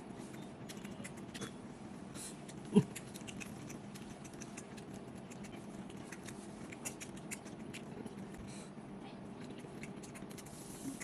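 Close-up eating sounds: chewing with many small wet mouth clicks and smacks. One short, louder voiced sound comes about three seconds in.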